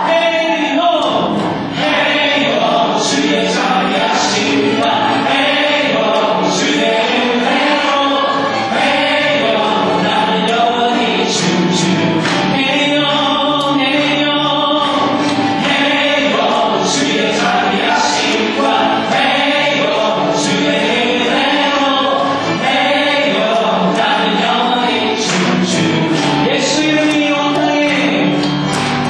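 A church praise team singing a gospel worship song together as a group, their voices amplified through microphones.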